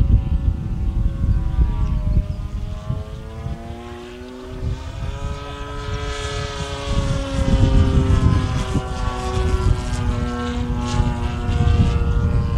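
Radio-controlled model airplane's engine and propeller droning overhead. The note dips and fades a few seconds in, then swells and rises in pitch before slowly falling again.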